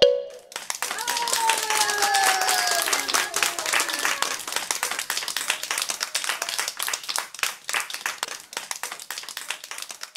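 A class of young children clapping in a dense, irregular patter, with a few high voices calling out in the first few seconds. The clapping gradually thins and fades toward the end.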